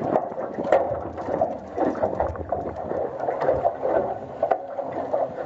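Water sloshing against the hull of a small fishing boat, with uneven wind and motion noise and scattered brief knocks. No steady engine note is heard.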